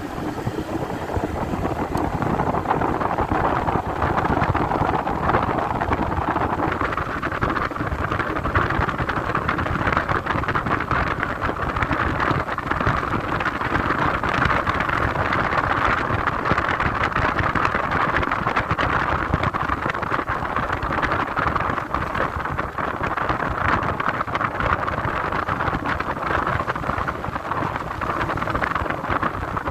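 Motorcycle on the move: a steady rush of wind and road noise over the running engine.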